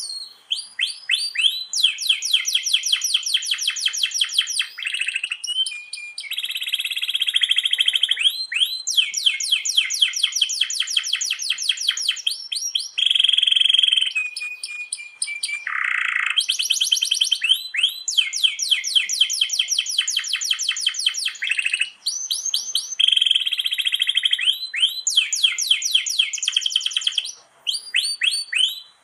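Domestic canary singing a continuous song of long rolls: fast trills of rapidly repeated high notes alternating with buzzing rolls and quick rising whistles. The same run of phrases starts over about halfway through, as in a looped recording, and the song cuts off suddenly at the end.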